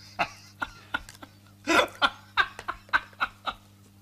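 A man laughing in a string of short chuckling bursts, the loudest about two seconds in.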